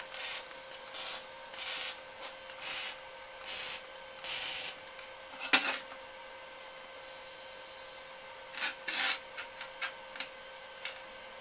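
Arc welding tacks on steel plate: about six short bursts of welding, each about half a second and roughly a second apart, then a sharp knock halfway through and a few shorter bursts and clicks near the end.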